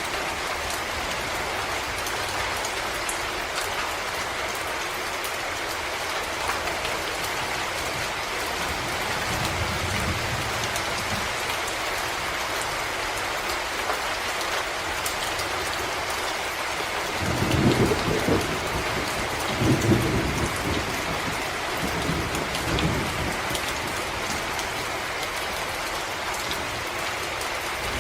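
Steady rain pattering on forest leaves and ground. There is a faint low rumble about a third of the way in, then a louder rolling rumble of distant thunder in several surges in the second half.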